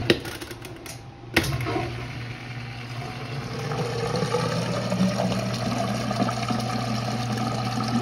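A click of the Whirlpool top-load washer's timer dial, then a clunk about a second and a half in. After that the motor hums and the drain pump runs, a rushing of water building up as it is pumped out through the drain hose into the standpipe. The washer drains but its basket won't spin, the sign of a cracked motor coupler.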